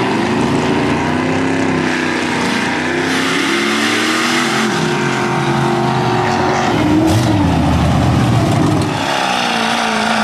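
Mud-bogging truck engine revving hard, its pitch rising and falling several times.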